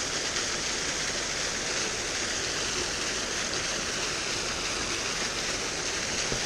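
Small mountain-stream waterfall splashing down over rocks into a pool: a steady rush of falling water.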